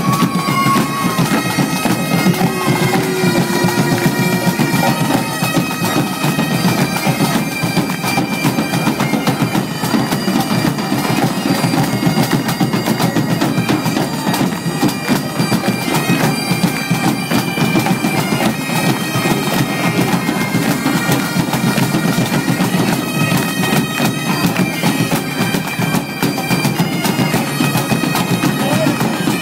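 Pipe band playing: several Highland bagpipes sound a melody over their steady drones, with big drums, bass drum among them, beating along.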